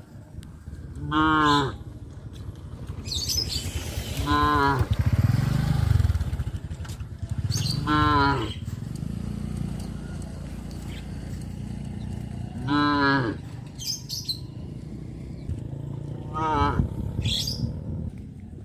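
Cattle mooing: five short calls a few seconds apart, with a deeper, longer low call around the middle.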